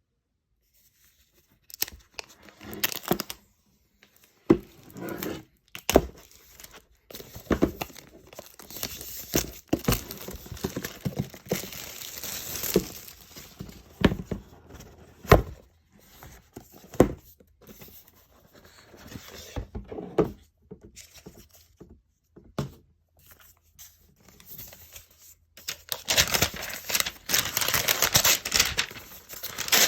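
Cardboard and paper packaging of a laptop box being handled and torn open: tearing and crinkling in uneven stretches, with sharp knocks and taps from the box and its contents. The tearing is densest and loudest near the end.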